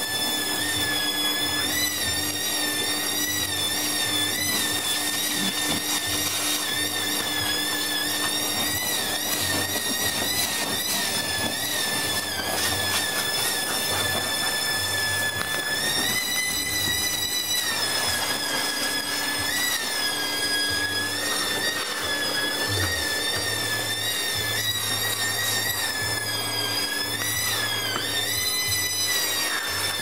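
Workshop vacuum cleaner running with a loud, high whistle over the steady hum of its motor. The whistle's pitch wavers and bends up and down the whole time, a whistle the vac has developed that changes with how it is used.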